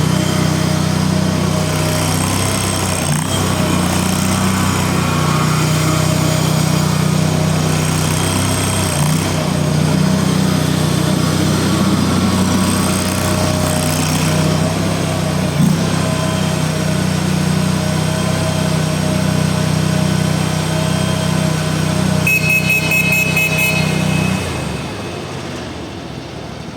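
Small 23-horsepower skid steer loader engine running steadily under operation. Near the end there is a brief high-pitched pulsing tone, then the engine stops and the sound fades away.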